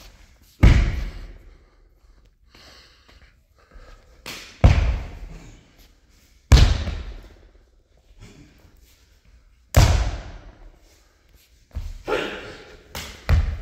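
A kung fu practitioner's sharp foot stamps and slaps during a Shaolin form, about six loud hits a few seconds apart with several close together near the end, each echoing in a sports hall.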